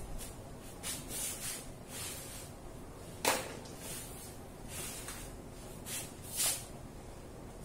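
Whiteboard eraser rubbing across the board in short swishing strokes, with a sharp knock about three seconds in. Near the end, a dry-erase marker squeaks briefly on the board.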